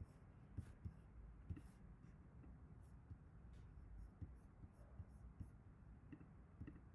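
Faint, irregular clicking from someone working a computer while searching through files, over a low steady hum.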